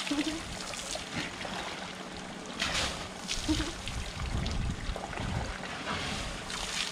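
Water splashing and trickling as an Asian elephant standing in a pool dips and swings its trunk through the water, with a few sharper splashes near the middle.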